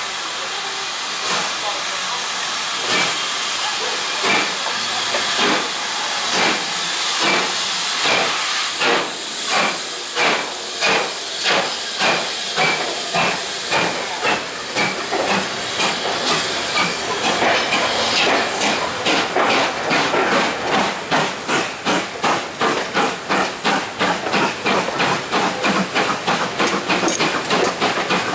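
GWR Hall class two-cylinder steam locomotive No. 6988 Swithland Hall pulling away with its train: hissing steam, then chuffing exhaust beats that quicken steadily, from about one and a half a second to about three a second near the end, as it gathers speed.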